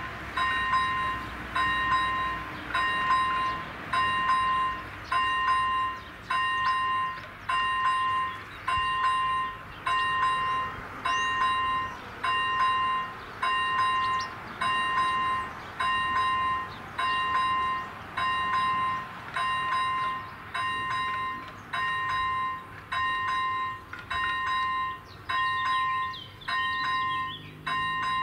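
Railway level-crossing warning bell ringing steadily, about one ding a second: the crossing is active, warning that a train is approaching. Birds chirp faintly now and then.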